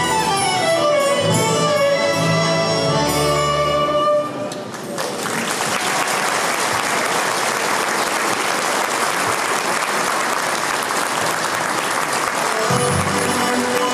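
Folk ensemble music with a pulsing bass line stops about four seconds in. An audience then claps steadily. The music starts again near the end.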